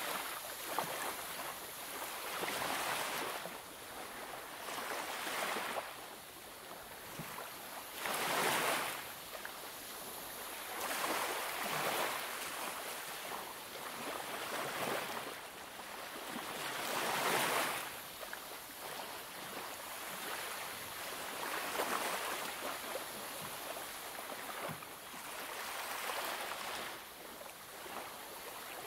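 Coloured pencil shading on paper: a dry, scratchy hiss that swells and fades with each run of strokes, every second or two.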